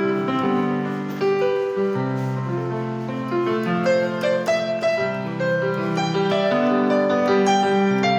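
Casio WK-3000 workstation keyboard playing a piano voice: sustained low chords with a melody moving above them.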